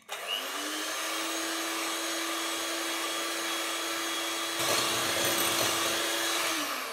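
Electric hand mixer running, its twin beaters whipping egg whites in a glass bowl. The motor spins up at the start and runs steadily, gets louder about two-thirds through, then winds down near the end.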